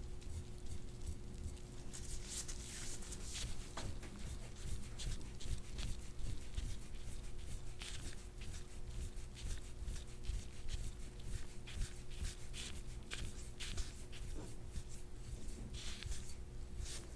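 Soft, irregular rustling and rubbing over a steady low hum.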